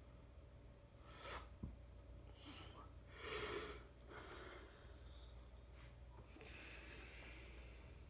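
Near silence under a low steady hum while a Hunter Original ceiling fan coasts down almost noiselessly, its bearings free. A few soft breath-like puffs and a small click come through, the loudest puff about three and a half seconds in.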